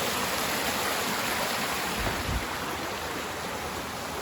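Stream water rushing steadily, with a brief low thump about two seconds in.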